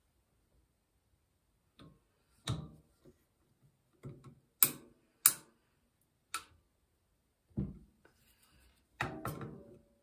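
Sharp clicks and knocks of a screwdriver and a plastic spoke reflector against the steel spokes of a bicycle wheel as the reflector is fitted. The clicks are separate and irregular, the loudest two a little past the middle, about half a second apart, with a longer rattling spell near the end.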